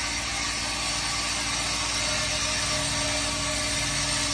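Automatic perfume bottle filling and capping machine running steadily: an even mechanical hum and hiss with a constant high whine.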